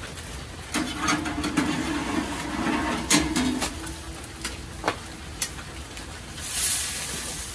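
Stainless steel tongs and a metal spatula clinking against the infrared grill's rack while a seared steak is slid out: a handful of sharp metal clicks over a steady low hum, with a soft hiss near the end.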